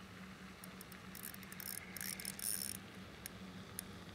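Fishing reel ratcheting in bursts while a hooked fish is fought in on light tackle. Scattered clicks lead into about two seconds of quick ratcheting bursts, which fall back to scattered clicks near the end.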